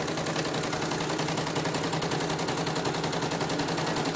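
CNY portable embroidery machine stitching a design in its hoop: a fast, even clatter of needle strokes. It runs smoothly after the area around its rotary hook was re-set and sanded, which the repairer judges smooth enough without replacing the rotary hook.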